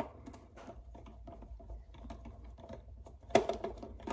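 Screwdriver backing a screw out of the plastic back housing of a Big Mouth Billy Bass singing fish: a run of small ticks and scrapes, with a louder cluster of clicks a little over three seconds in.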